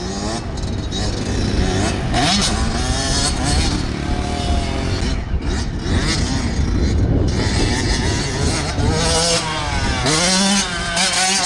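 Dirt bike engine revving up and down as the rider works the throttle, its pitch rising and falling several times.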